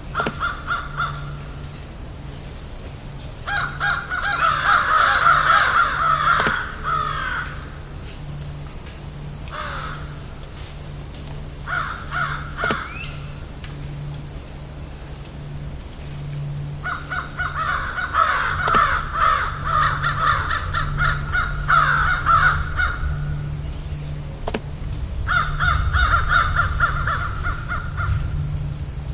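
Crows cawing in several bouts of rapid, repeated harsh caws with short pauses between them. A steady low hum runs underneath.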